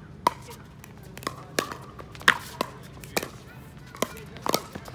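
A pickleball rally: paddles striking the plastic ball in a quick run of sharp pocks, some close together and some about a second apart.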